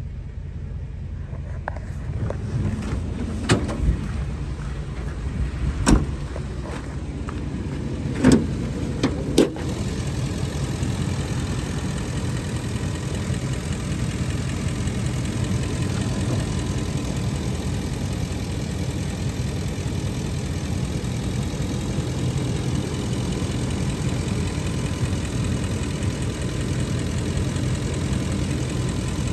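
Ford E-350 box truck's gasoline engine idling steadily, louder from about two seconds in, with a few sharp knocks and clunks in the first ten seconds.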